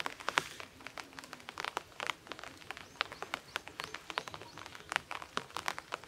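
Irregular small clicks and crackles of dry sticks as a hand presses and shifts them on a cord-lashed stick frame, several a second.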